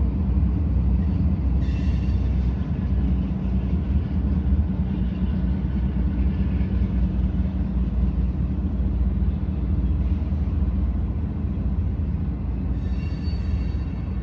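Steady low rumble with a constant low hum underneath. Faint high-pitched squealing tones come in briefly about two seconds in and again near the end.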